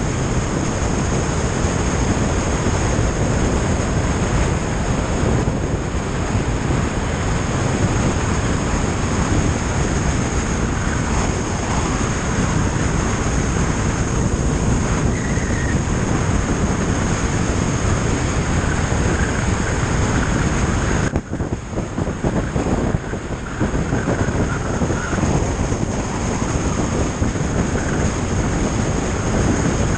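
Wind rushing over the microphone of a motorcycle cruising at road speed, mixed with engine and tyre noise. The rush eases briefly a little over 20 seconds in.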